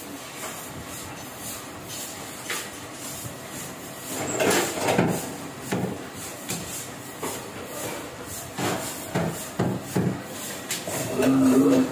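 Heidelberg offset printing press running with a steady, rhythmic clatter. Over it come the rustle and knock of stacks of printed paper sheets being lifted and handled, loudest about four seconds in and again near the end.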